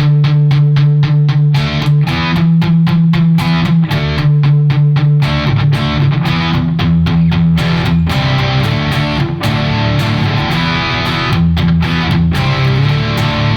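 Overdriven electric guitar run through stacked overdrive pedals and then an old Korg compressor, which takes off a little treble, brings the low end forward and smooths the top. It starts with fast, tightly muted rhythmic picking, then moves to longer held chords about halfway through.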